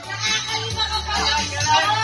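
Background music with long held bass notes.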